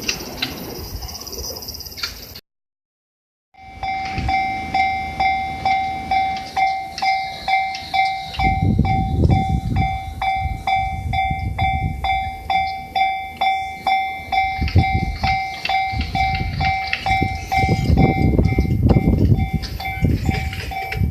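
Japanese level-crossing warning bell ringing evenly at about two strikes a second while the gates are down, with Yamanote Line electric trains rumbling over the crossing twice, the first passing about a third of the way in and the second near the end.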